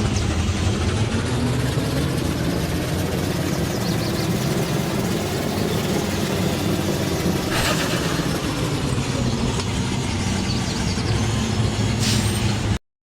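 ZIL-130 truck's V8 engine running steadily, with two short bursts of hiss about eight and twelve seconds in; the sound cuts off suddenly just before the end.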